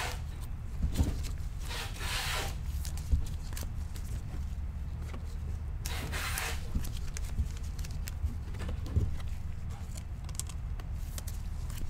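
Trading card packs and cards being handled: two rustling, scraping swipes about two and six seconds in and a few light taps, over a steady low hum.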